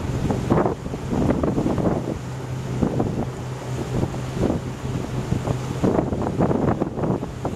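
Wind buffeting the microphone in irregular gusts, over the steady low hum of a boat's motor.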